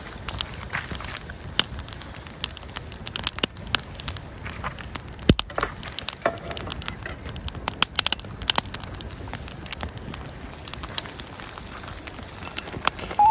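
Wood campfire crackling, with irregular sharp pops over a low steady hiss.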